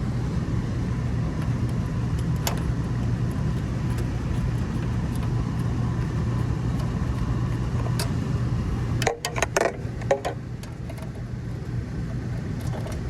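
Steady low mechanical drone, with a few sharp clicks and a light metallic rattle of handled parts about nine to ten seconds in.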